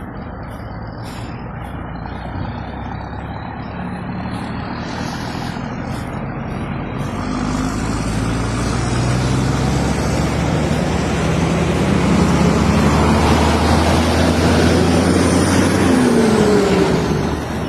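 Heavy truck engine under load, getting steadily louder and higher in pitch for about twelve seconds, then dropping in pitch and level near the end.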